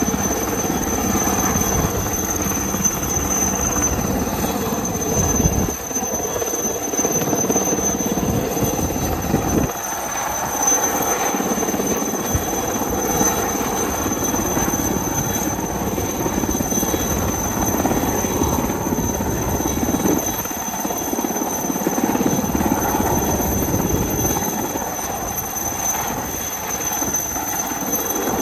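Helicopter hovering low, its rotor noise carrying a steady high-pitched turbine whine. A low rumble fades and returns every few seconds.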